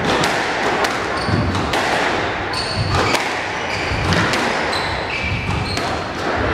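Squash rally: the ball cracking off rackets and the court walls about once a second, with short high squeaks of players' shoes on the wooden court floor in the middle of the rally.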